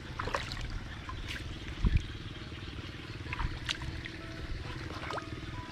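A small engine running steadily, with water trickling and splashing, scattered sharp clicks, and a dull thump about two seconds in.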